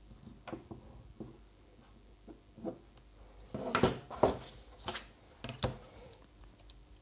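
Drawing instruments handled on a desk: a metal compass put down and a plastic set square picked up and laid on the paper, making a scatter of light clicks and knocks, loudest around the middle.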